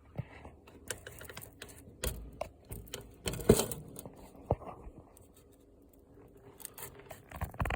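Scattered clicks, taps and scrapes of handling, the loudest cluster about three and a half seconds in, with a quiet stretch in the second half before more clicks near the end.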